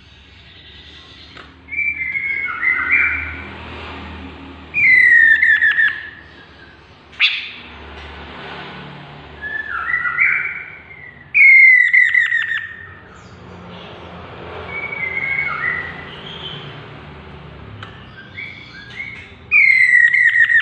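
Chestnut-capped laughingthrush singing: a series of whistled phrases, the three loudest each a falling whistle, spaced about six to seven seconds apart, with softer warbled phrases between them. A single sharp click sounds about seven seconds in.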